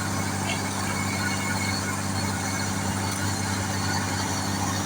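Engine of road-construction machinery running steadily at a constant low pitch.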